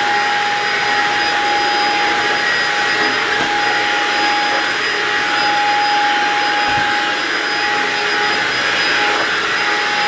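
Stick vacuum cleaner with a powered floor head running steadily, a constant whine over the rush of air, as it sucks up dust and debris from a wood floor.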